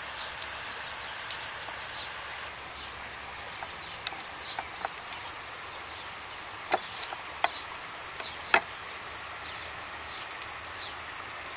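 Garlic cloves being peeled and cut with a chef's knife on a wooden cutting board: a few sharp knocks of the blade on the board, mostly in the second half. Birds chirp faintly in the background.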